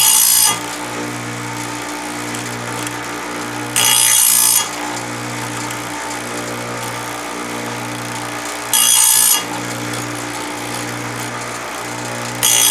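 Electric chainsaw sharpener running with a steady motor hum, its abrasive wheel lowered onto a chain tooth about every four seconds: four short grinding hisses, each under a second, one tooth after another.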